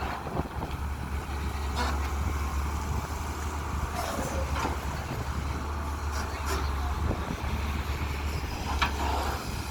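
Diesel engine of a CAT 320 long-reach excavator running steadily with a deep hum, with a few short knocks over it.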